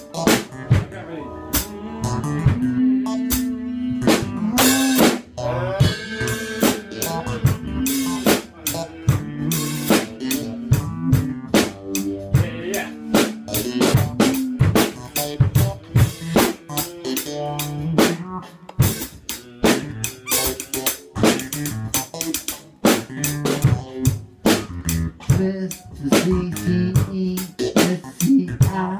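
Live band music, heard close to the drum kit: a busy beat of kick drum, snare and rimshots over a bass line and guitar.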